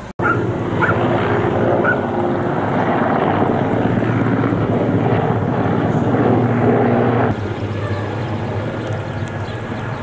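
Firefighting helicopter with a water bucket slung beneath it, its rotor and engines running steadily as it flies overhead. The sound drops abruptly in level about seven seconds in.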